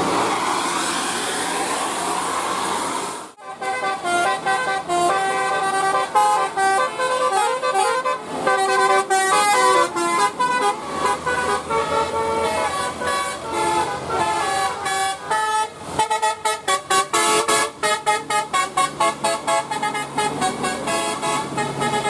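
Multi-tone bus telolet horn playing a melody, its notes stepping from pitch to pitch, breaking into fast on-off staccato bursts in the last several seconds. The first three seconds are a hissy, noisier stretch that cuts off abruptly.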